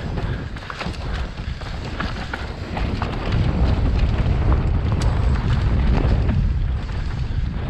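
Wind buffeting a helmet-mounted camera's microphone during a fast mountain bike descent on dirt singletrack, with tyre rumble and scattered clicks and knocks from the bike over rough ground. It grows louder about three seconds in and eases near the end.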